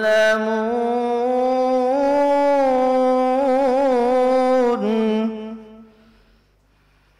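A man reciting the Quran in melodic tilawah style, holding one long drawn-out note that wavers in an ornamented turn about three to four seconds in, then dies away a little after five seconds.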